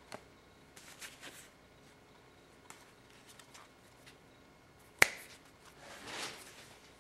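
A deck of playing cards being cut and flourished by hand: scattered light clicks and flicks of card packets, then one sharp snap about five seconds in followed by a short swish of cards sliding.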